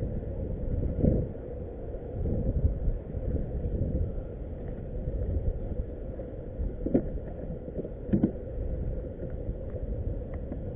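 Wind rumbling on the kayak-mounted camera's microphone, with a faint steady hum underneath and two short knocks about seven and eight seconds in.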